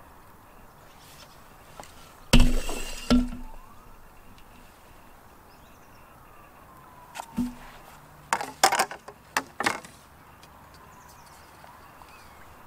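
Two loud hard knocks about two and three seconds in, a single knock around seven seconds, then a quick burst of lighter clicks and rattles: fishing tackle being handled on the seatbox and side tray.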